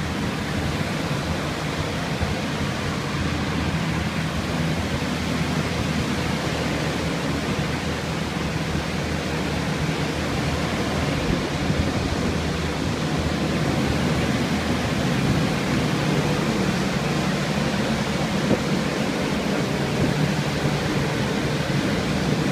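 Water-damage drying equipment running: the steady rush of air and low hum of air movers set out to dry a flooded floor.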